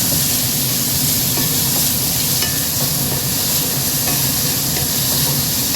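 Whole spices and dried red chillies sizzling steadily as they fry in hot oil in a pan, being stirred.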